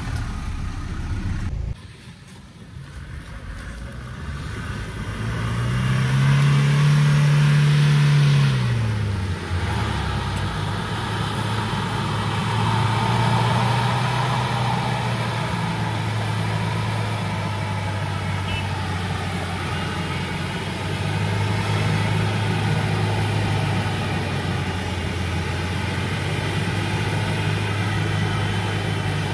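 SUV engine revving up and easing back down once, about six seconds in, then running steadily under light load.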